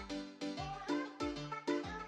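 Background music with a steady beat of about four strikes a second: a deep drum hit on each beat under short pitched notes.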